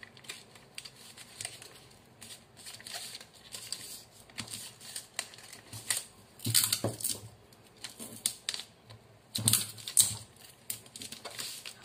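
Paper rustling and light tapping as paper strips are folded into pleats and pressed flat by hand on a paper sleeve pattern, with two louder bursts of paper handling, about halfway through and shortly before the end.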